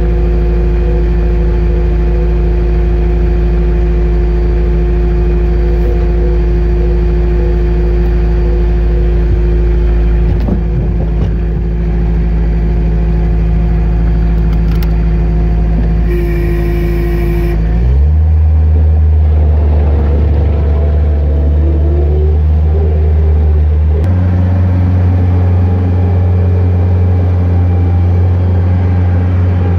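Skid loader engine heard from inside the cab, running steadily at low speed, then throttling up sharply a little past halfway and stepping up again a few seconds later.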